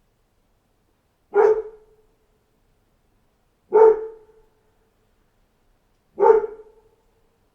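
A dog barking: three single loud barks spaced about two and a half seconds apart, each trailing off briefly.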